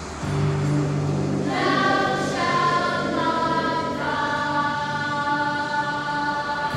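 Film score: a choir comes in about a second and a half in, singing slow held chords over a low steady drone, the chords shifting every second or so.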